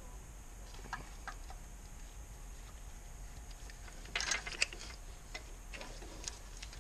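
Hand tap being turned by a T-handle wrench, cutting M14×1.5 threads into the aluminium 2JZ-GE oil pan: faint, irregular squeaks and clicks of the tap and wrench, with a louder scraping burst about four seconds in.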